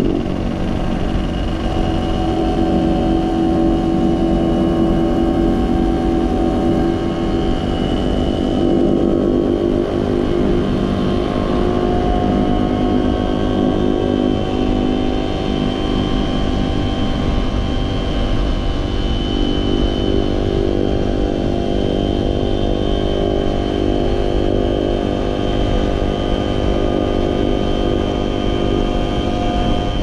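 Small motorcycle engine running steadily while being ridden, its pitch shifting only slightly.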